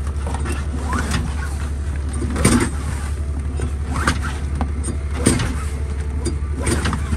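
Stels Capitan snowmobile being started in deep frost, around minus 30 °C, without the engine catching: a few short, sharp starting attempts, the clearest about two and a half, four and five seconds in, over a steady low hum.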